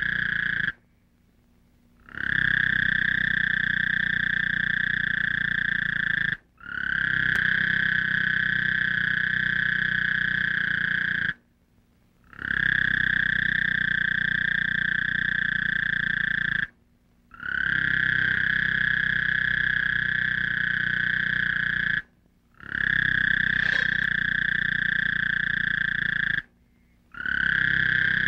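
A steady, high-pitched trilling drone with a low hum beneath it, held in stretches of about four to five seconds and cut off abruptly by short silences six times.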